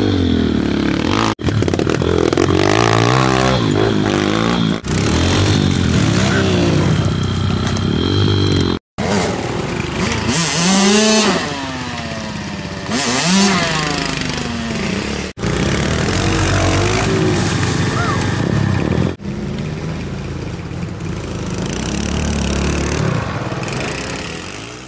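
Small off-road pit bike engines revving up and down as the riders climb out of a dirt gully, the pitch rising and falling with the throttle. The sound breaks off abruptly several times between takes.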